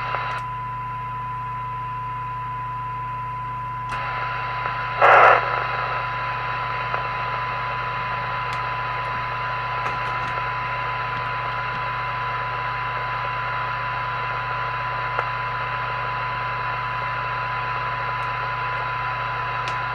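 A CB radio receiver's speaker playing a steady test tone from the injected signal-generator signal over a bed of receiver hiss and a low steady hum, while the IF coil L105 is being adjusted. The hiss grows slightly about four seconds in, with a brief louder burst of noise about a second later.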